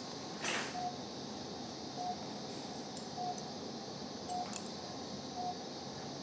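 Patient monitor in an operating room beeping with each heartbeat: short identical mid-pitched beeps a little more than a second apart, over a steady hiss, with a brief rustle and a few faint clicks.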